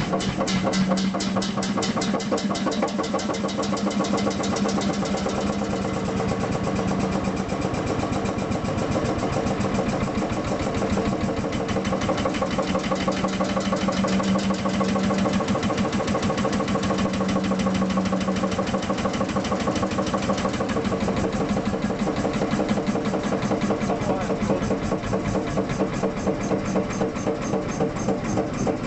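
Kelly and Lewis H1 two-stroke hot-bulb stationary engine running steadily, its firing strokes a fast, even beat.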